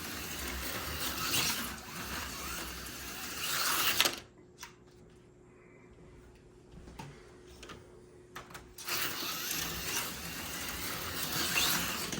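HO-scale AFX Super G-Plus slot car running laps, its small motor and gears making a steady whine that swells and fades as it goes round the track. It stops about four seconds in, leaving a few light clicks, and runs again for the last three seconds.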